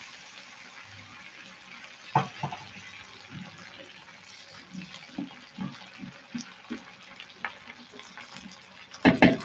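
Water poured from a glass into a wide pan of sliced chayote, then a knock about two seconds in and a spatula stirring and scraping through the vegetables in soft irregular knocks. A short louder clatter comes near the end.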